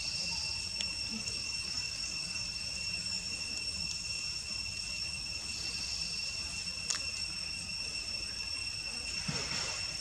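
Steady, high-pitched drone of an insect chorus holding a few fixed pitches, with two sharp clicks, one about a second in and one near seven seconds, and a short low sound near the end.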